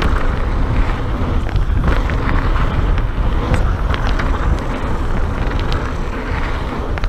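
Mountain bike riding fast over a gravel trail: steady wind rumble on the microphone with tyres crunching on gravel and the bike rattling, with many small clicks and knocks scattered throughout.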